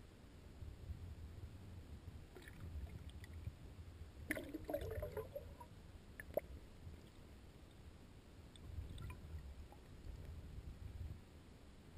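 Muffled low rumble of river water moving past a camera housing held underwater, with a brief bubbling gurgle about four seconds in and a single sharp knock a couple of seconds later.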